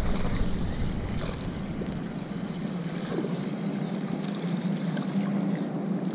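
Wind buffeting the microphone, with a steady low hum underneath.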